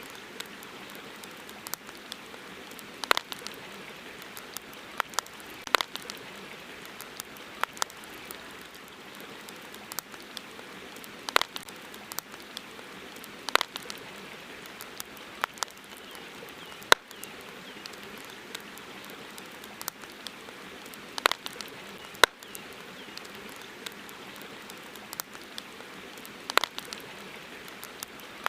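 Wood campfire crackling: irregular sharp pops, a loud one every second or two among smaller snaps, over a steady hiss.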